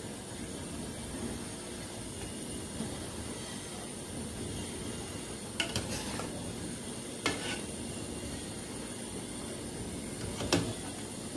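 Pot of lotus root and pork bone soup simmering on a gas stove, a steady bubbling hiss. A few sharp metal clinks sound about halfway through and near the end.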